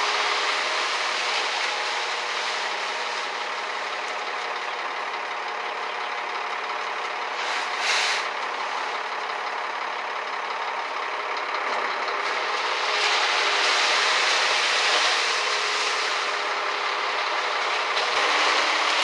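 An engine running steadily under a haze of mechanical noise, with a short hiss about eight seconds in and the sound growing louder a few seconds later.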